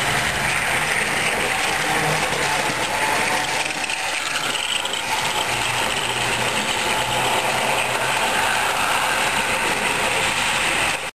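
HO-scale model train running past on the track: a steady whir of its small motor and wheels rolling on the rails, which cuts off suddenly at the end.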